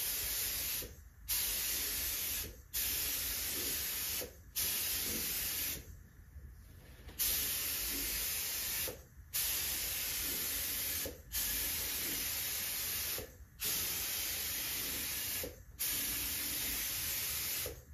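Gravity-feed paint spray gun spraying primer, hissing in about ten bursts of one to two seconds each as the trigger is pulled for each pass, with short breaks between and a longer pause about six seconds in.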